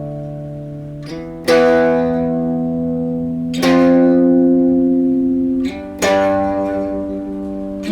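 Electric guitar playing power chords, the same two-finger shape struck three times and slid to a new position between strikes, each chord left ringing for about two seconds.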